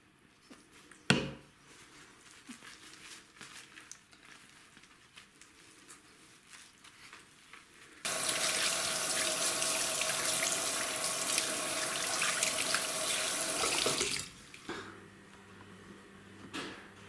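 Bathroom washbasin tap running, its stream splashing onto a wet kitten and the basin as the kitten is rinsed; the water starts suddenly about eight seconds in and stops about six seconds later. Before it, light handling clicks and one sharp knock about a second in.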